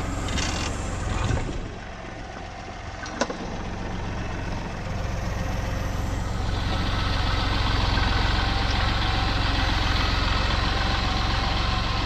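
Compact tractor's engine running steadily while its loader lifts a truck engine on a chain; the engine grows louder about five seconds in as it is throttled up. A single sharp knock about three seconds in.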